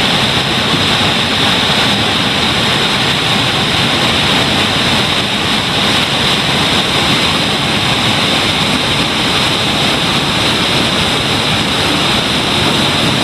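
Mountain river rushing through whitewater rapids over boulders: a loud, steady rush of water.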